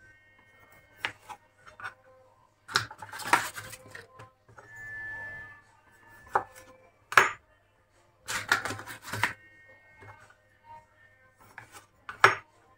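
Kitchen knife slicing cherry tomatoes on a cutting board: irregular taps and knocks of the blade against the board, bunched into short clusters of clatter a few times.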